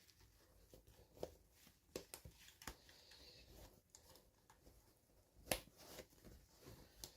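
Quiet handling of small plastic toy pieces and packaging: scattered light clicks and taps, the sharpest about five and a half seconds in.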